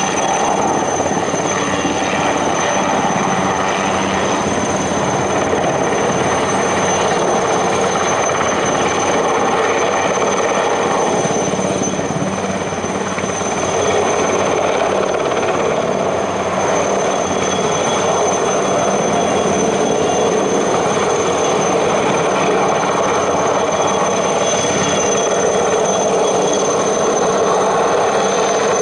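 Aérospatiale Alouette-family light turbine helicopter flying overhead: steady rhythmic rotor chop under a constant high turbine whine. It eases off slightly near the middle, then grows louder again.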